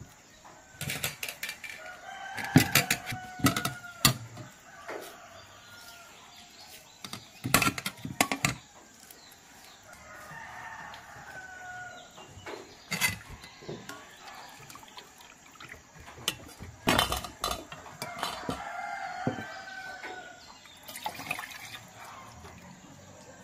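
A rooster crowing several times, with sharp knocks and clatter from metal bowls and a wire strainer being handled.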